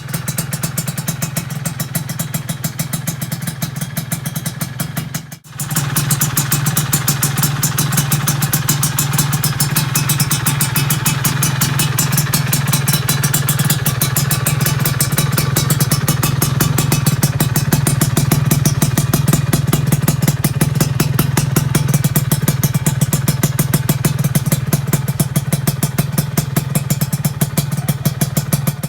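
Yamaha F1ZR two-stroke engine running through an AHM Malaysia aftermarket exhaust, a loud, steady rapid-firing exhaust note that briefly drops out about five seconds in and then comes straight back.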